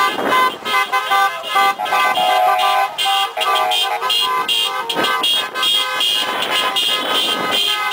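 Many car horns honking at once, overlapping and nearly continuous, with different pitches starting and stopping over the noise of the traffic.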